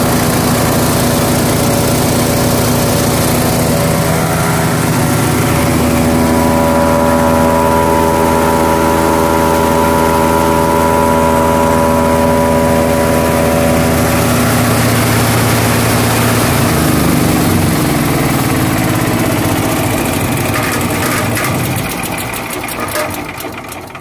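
The 15-horsepower petrol engine of a BBT9000 wood chipper, just started on choke and exhausting through an extended side pipe, running steadily and loud. Its pitch steps up about five seconds in and changes again about halfway through, then falls away near the end as the engine is shut down.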